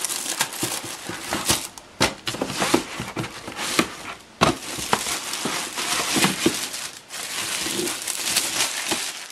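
A cycling helmet in a clear plastic bag being pulled out of a cardboard box: the plastic crinkles and rustles and the cardboard scrapes, with two sharp knocks about two seconds and four and a half seconds in.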